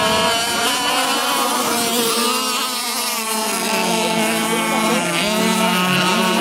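Two radio-controlled racing boats running flat out side by side, their small high-revving motors giving two overlapping engine notes whose pitch drifts up and down as they race.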